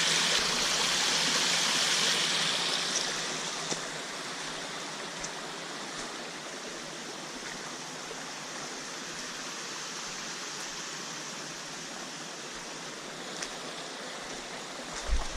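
Creek water running over rocks: a steady rushing hiss, louder for the first few seconds and then settling lower, with a few faint clicks.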